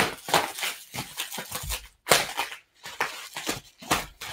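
Plastic wrap crinkling and rustling as it is pulled off by hand, in a quick series of short bursts.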